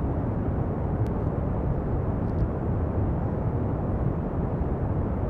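Steady pink noise: an even, rushing hiss weighted toward the low end.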